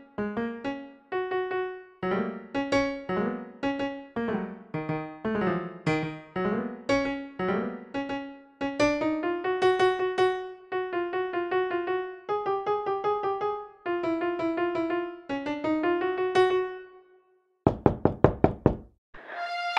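Keyboard playing a traditional Venezuelan song, a simple melody of separate notes that each die away, ending about 17 seconds in. Near the end comes a quick run of about eight sharp knocks.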